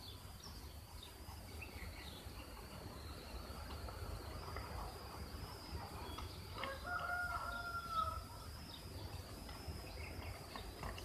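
A rooster crowing once, a call of about a second and a half, roughly two-thirds of the way through. Under it are a faint steady high whine and a few soft snips of scissors cutting a paper envelope.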